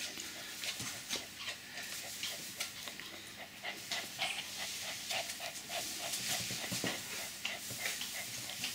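A puppy panting fast during rough play, with many short clicks and scrabbles of claws on a wooden floor.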